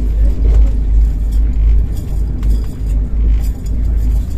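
Steady low rumble of a moving express train heard inside the passenger coach.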